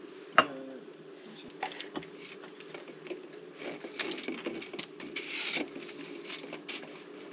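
Yellow corrugated plastic cable conduit rustling and scraping as it is handled and fed through a wall opening, with a sharp knock about half a second in. A faint steady hum runs underneath.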